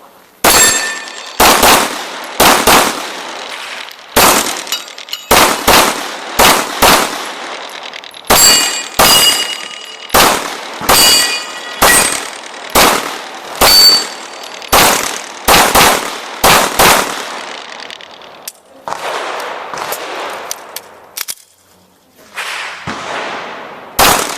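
Pistol fire: about two dozen shots in quick pairs and short strings. Several are followed by the brief ringing clang of hit steel targets. Fainter, echoing shots and noise follow near the end.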